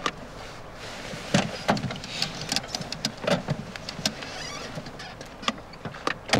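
Saab 99 GL that will not start: irregular clicks and knocks with a faint motor whirr. The men put it down to a current leak to ground somewhere or a flat battery.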